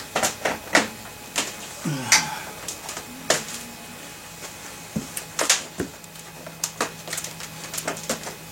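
PVC pipes and fittings clicking and knocking together as they are handled and fitted for the next level of a rack, in an irregular run of sharp plastic clacks.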